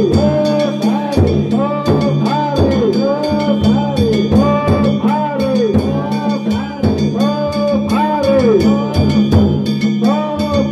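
Festival folk music played loud and steady: drums beating under a melodic line of repeating phrases whose notes slide up and fall away, over a sustained low drone.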